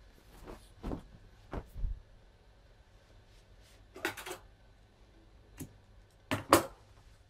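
A fabric cushion cover being handled as it is turned right side out and laid on the table: rustling with a few soft thumps early on and two sharper handling noises, the loudest about six and a half seconds in.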